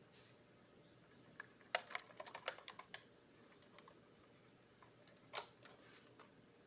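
Keys being pressed on a Skyloong GK61 60% mechanical keyboard: a quick burst of clacking keystrokes about two seconds in, then a few scattered presses, one of them louder.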